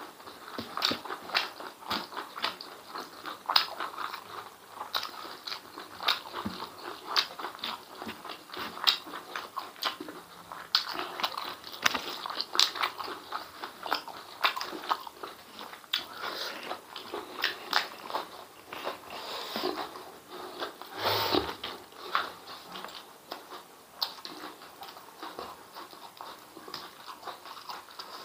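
Close-up eating sounds: wet chewing, lip smacking and crunchy bites from a person eating chewy beef and chicken intestines in spicy sauce with rice and raw vegetables. There are many short, irregular smacks and one louder, longer sound a little past two-thirds through.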